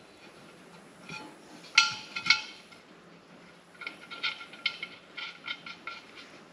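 Irregular short metallic clinks and taps from a steel wheel rim and tyre tools while an inner tube is worked into a bush hog tyre: two loud clinks about two seconds in, then a quicker run of lighter ones.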